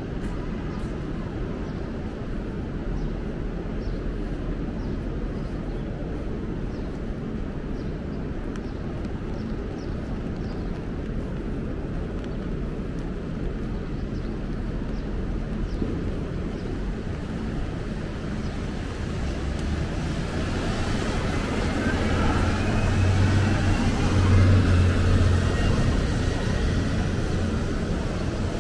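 Traffic on rain-wet city streets: a steady wash of passing vehicles and tyre noise. A heavier vehicle's engine grows louder from about two-thirds of the way through, its pitch sliding, then eases off near the end.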